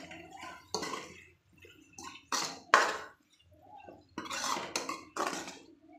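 Steel ladle scraping and knocking against a metal kadai as chopped green tomatoes and dry spices are stirred together, in several separate strokes, the longest about four seconds in.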